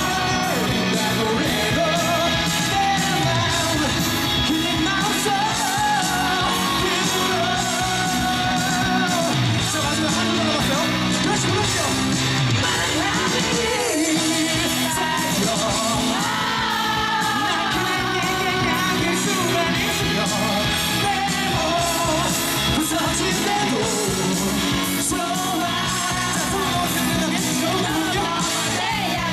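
Live rock band playing, with singing and yelling over the music.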